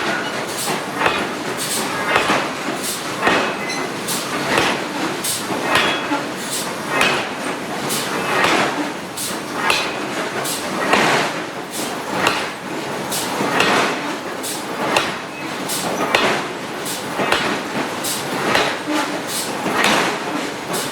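Hydraulic forging hammer striking hot steel again and again, a heavy blow roughly every second, with metallic clatter between the blows.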